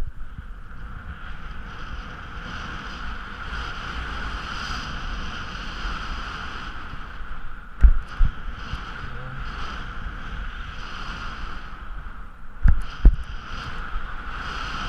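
Skis sliding and hissing over snow, with wind rumbling on the microphone. The hiss fades twice, about halfway through and again near the end, and each time two heavy thumps follow.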